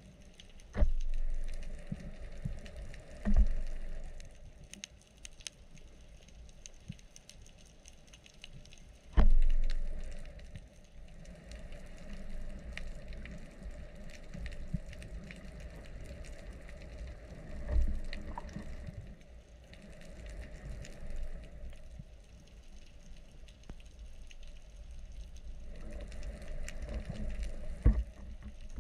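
Underwater ambience picked up by a camera mounted on a speargun: a faint steady crackle of fine clicks, broken by a few low knocks, about a second in, about three seconds in and, loudest, about nine seconds in.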